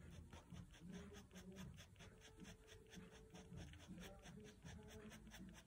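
Staedtler Pigment Liner 0.1 fine-tip pen scratching on paper in quick, short, repeated strokes, several a second, faint.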